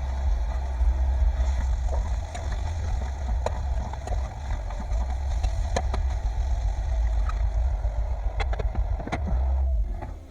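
Stove burner running steadily under a pan of seasoned ground beef, with scattered clicks of a utensil against the pan. The burner's rumble cuts out about a second before the end.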